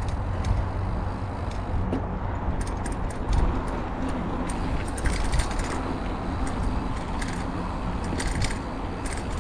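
Mountain bike rolling along a dirt trail: a steady low rumble of wind and tyres, with frequent light rattling clicks from the bike.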